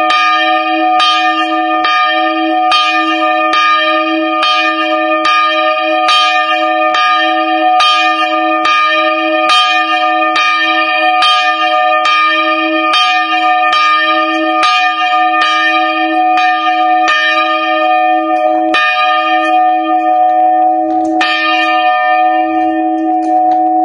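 Bronze church bell cast in 1779, 64.5 cm across, swinging, its clapper striking a little more than once a second. Near the end the swing dies away: the strikes come farther apart, stop after one last blow, and the bell hums on.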